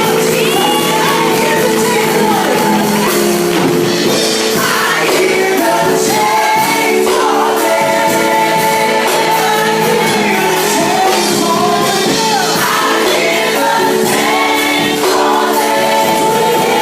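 Live gospel worship band playing sustained chords, with singers' melodic lines over them and no clear lyrics.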